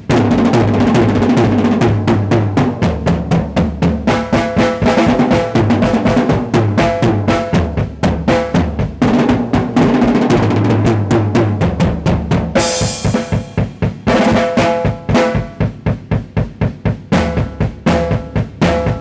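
Acoustic drum kit played solo: fast strokes and rolls across the snare and toms over a steady bass drum, with a cymbal crash about two-thirds of the way through.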